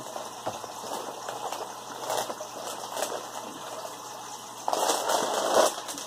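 Cardboard cracker box being opened and its plastic inner bag pulled out: crinkling and rustling with small clicks, louder for about a second near the end.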